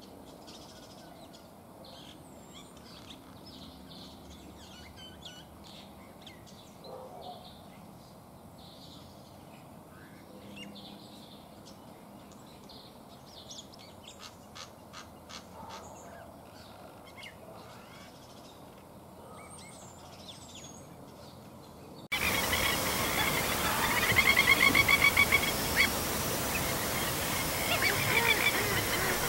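Wild birds calling. Faint scattered chirps at first, then after about twenty seconds the level jumps to louder, harsh bird calls repeated in quick runs.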